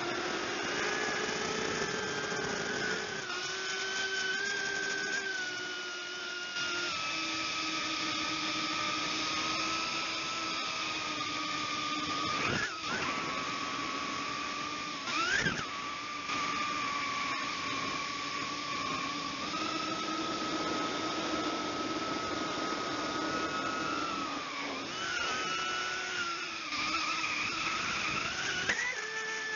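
Brushless motors and propellers of a small 135 mm FPV quadcopter whining, heard through its onboard camera, the pitch drifting up and down with throttle. Twice, about halfway through, the pitch swells sharply and drops back.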